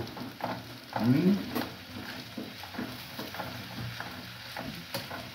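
A metal spoon stirring and scraping leafy greens in a stainless saucepan, over a steady frying sizzle. A brief voice sound comes about a second in.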